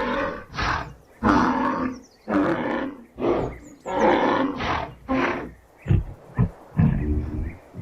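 Rhinoceros calling: a series of harsh, noisy calls, each about half a second long and coming about once a second, with a few shorter, lower ones near the end.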